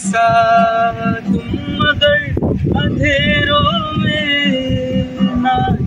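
A man singing long held notes, the middle one wavering, over an acoustic guitar strummed in a steady rhythm.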